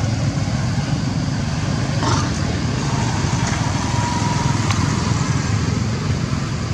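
Motorbike traffic passing close by on the road: a steady engine and road noise.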